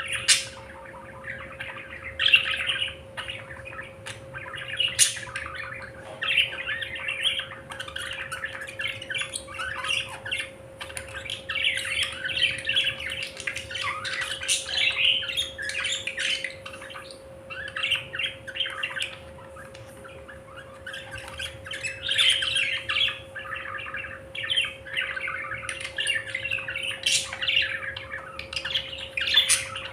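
A flock of budgerigars chattering and squawking continuously, with a few sharp clicks, over a steady low hum.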